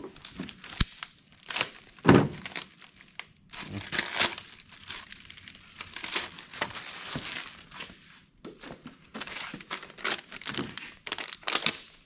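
Small plastic hardware bags crinkling and rustling as they are handled, with a sharp click about a second in and a thump about two seconds in.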